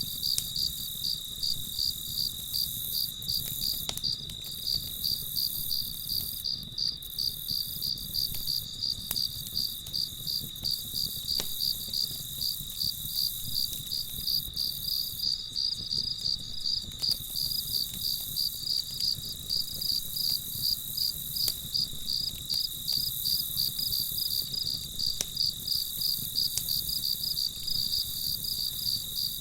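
Crickets chirping in a steady, even pulsing rhythm, with a few faint clicks here and there.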